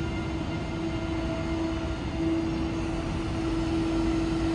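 Electric train at an underground station platform: a steady electric hum over a low rumble.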